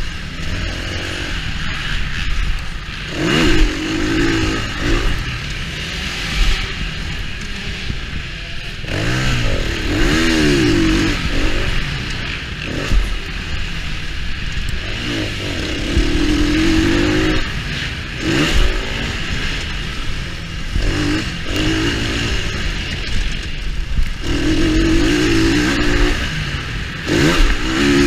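2019 KTM 350 EXC-F's single-cylinder four-stroke engine, stock exhaust, revving up and dropping off again and again as the dirt bike is ridden around the track, its pitch climbing and falling each time.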